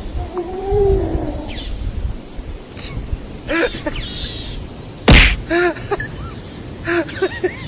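Birds chirping in short repeated calls, with one sharp knock about five seconds in.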